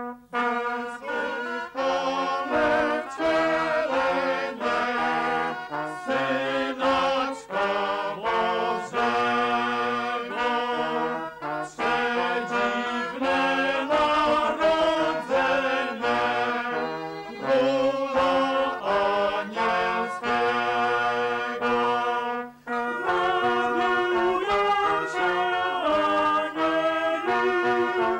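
An early-music ensemble of recorders and trombones playing an old Polish Christmas carol, with a small group of men singing along. The music runs in lively, changing notes, with one brief break about three-quarters of the way in.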